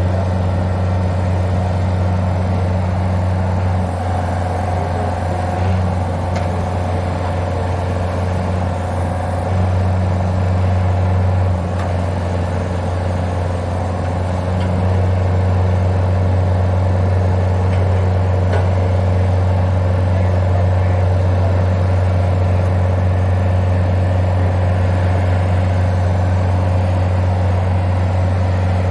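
Engine of an Orteco Pick & Ram 1200J crawler pile driver running steadily under varying load. It steps up to a louder, even level about halfway through.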